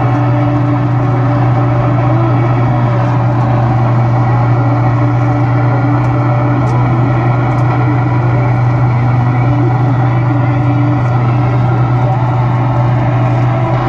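AM car radio playing static: a loud, steady hum and hiss with a few faint crackles about six to eight seconds in, the static of distant lightning.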